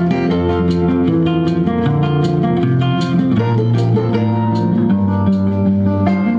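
Plucked guitar music played back through a prototype 833A valve audio amplifier and its speaker.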